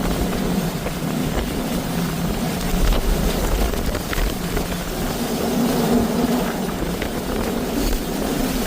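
Hurricane-force wind blowing hard across the microphone, a steady loud rumble with no let-up.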